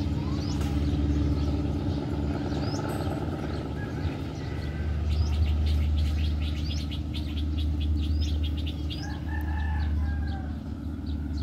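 Low, steady drone of a diesel locomotive hauling a passenger train away from the station, with birds chirping high over it, including a quick run of chirps in the middle.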